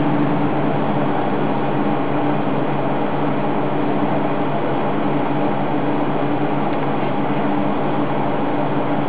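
Steady mechanical hum and hiss, a low drone holding one pitch at an even level.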